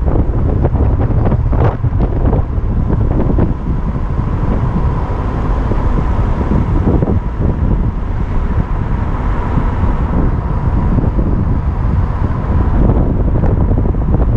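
Heavy wind buffeting the microphone of a camera travelling along the road, a dense uneven rumble. A thin steady tone runs underneath from about four seconds in until near the end.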